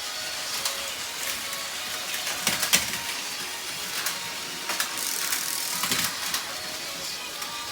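Plarail battery-powered toy trains running on plastic track: small motors and plastic gearboxes whirring, with irregular clicks and knocks from the wheels and cars clattering and bumping, the loudest a few seconds in.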